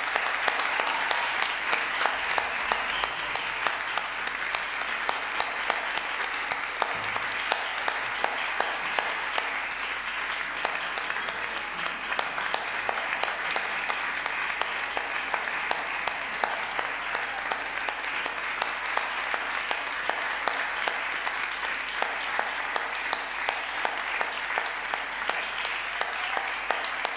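Audience applauding steadily, many hands clapping at once in a dense, even stream of claps.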